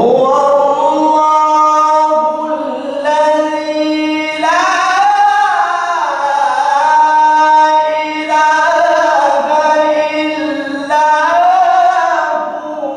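A male qari reciting the Quran in a melodic, sung style (tarannum), holding long notes that bend and waver in pitch through a microphone. The voice starts abruptly and tapers off near the end.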